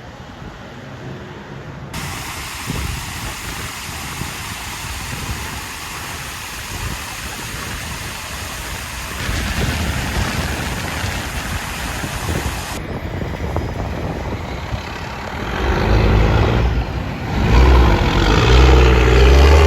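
Road traffic passing, then a heavy diesel truck's engine growing loud as it approaches over the last few seconds.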